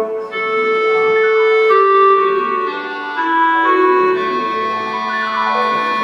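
Music: the instrumental introduction of the song, slow sustained keyboard chords that change every second or two, with no voice yet.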